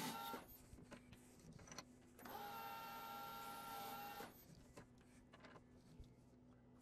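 Faint steady whine of a metal lathe running, heard briefly at the start and again for about two seconds in the middle, with near silence between.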